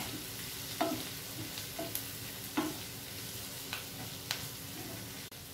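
A spatula stirring ivy gourd and onion in mustard oil in a white-coated frying pan: a low, steady sizzle with a few sharp scrapes and taps of the spatula against the pan at irregular moments.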